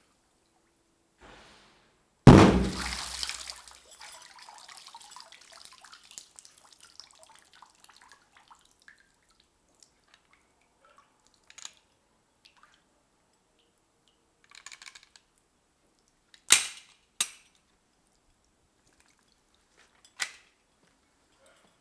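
Glock pistol fired underwater: a loud muffled shot about two seconds in, followed by splashing and dripping water that dies away over several seconds. Several shorter, sharp knocks come later, two of them close together.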